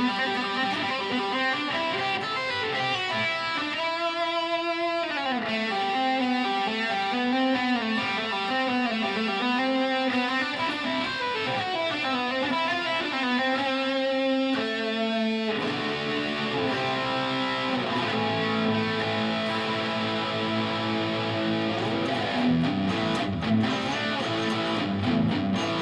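1958 Gibson Les Paul Special electric guitar played through a Line 6 Helix's slightly higher-gain Marshall JCM800 amp model. It starts with single-note lines and bends, then moves to fuller chords about halfway through.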